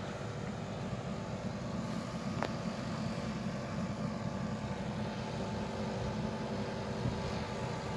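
Nissan Patrol 4x4's engine running steadily at low revs as it crawls through a shallow stream.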